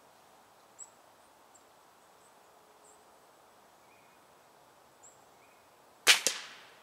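A Benjamin Prowler break-barrel air rifle fires one shot near the end: a sudden sharp crack, followed about a fifth of a second later by a second, weaker sharp sound. The rifle has been cold-soaked outdoors at about 35 degrees.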